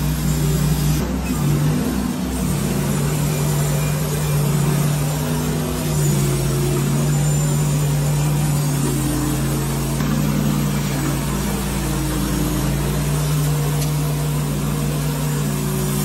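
Band sawmill running steadily under load, its engine humming while the band blade cuts lengthwise through a walnut log.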